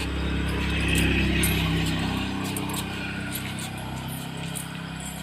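A motor vehicle's engine running as it passes on the road, loudest about a second in, then slowly fading.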